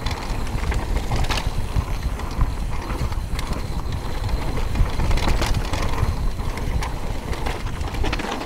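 Mountain bike descending a dirt trail at speed: a steady low rumble of the tyres on packed dirt, with frequent short clicks, knocks and rattles from the bike as it runs over bumps.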